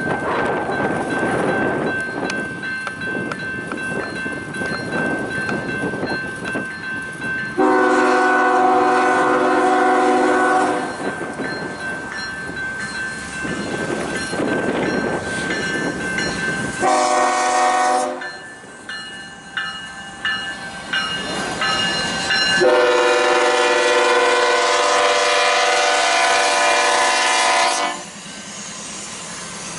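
Horn of a BNSF GE ES44C4 locomotive leading a freight toward a grade crossing, sounding several tones together: a long blast about a quarter of the way in, a short one near the middle, and a long one that ends just before the engine reaches the crossing. Between the blasts the approaching train rumbles steadily.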